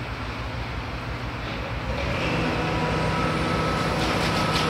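Hitachi Zaxis 350 high-reach demolition excavator's diesel engine running with a steady low rumble. About two seconds in it comes under load, growing louder with a steady whine, and a few sharp knocks follow near the end.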